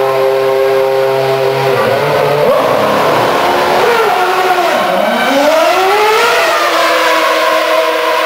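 Formula 1 car's 2.4-litre V8 engine running at a steady, even pitch in the pit box, then revved as it pulls away about five seconds in, the pitch dropping sharply and climbing again, before it settles on a steady note as the car drives down the pit lane.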